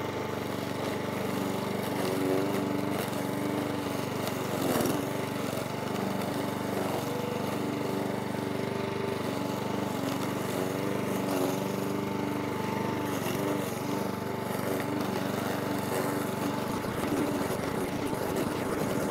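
Parkside PBM 132 B1 petrol lawn mower's 132 cc four-stroke engine running at a steady speed while mowing grass in mulching mode.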